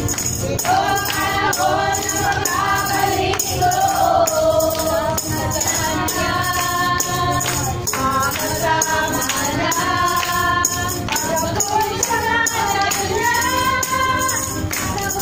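Group of voices singing a Tagalog praise song together, with a tambourine shaken to the beat.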